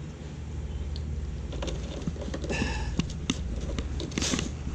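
Light, irregular taps and clicks of bottles and containers being handled while the compass liquid is mixed, over a steady low hum, with a short hiss near the end.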